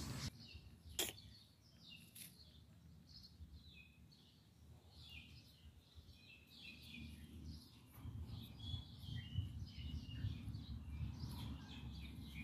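Small birds chirping and twittering in many short, scattered calls, faint. A single sharp click about a second in, and a low rumble under the birds from about eight seconds on.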